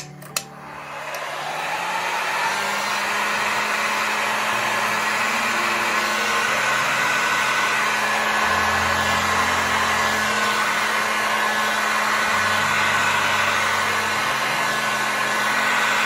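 Tacklife electric heat gun blowing steadily over wet resin, pushing the white resin into wave foam. Its rushing airflow comes up about a second in and then runs evenly.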